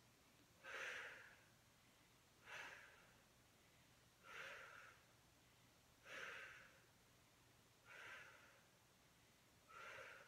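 Faint, even breaths out from a woman, six in all, about one every two seconds, paced with side-lying leg lifts against a mini resistance band.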